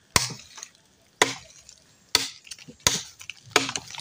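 Chopping at hard wood with a blade: five sharp strikes about a second apart, with small cracks and rustles between them.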